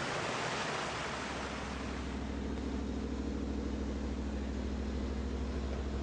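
A rushing hiss that gives way about a second in to an off-road vehicle's engine running steadily at an even speed.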